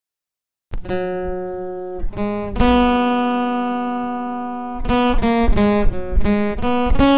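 Acoustic guitar picked with a plectrum, playing a slow single-note melody: after a brief silence at the start, a few ringing notes (F#, G, B), one held for about two seconds, then a quicker run of about six notes (B A G F# G B) near the end.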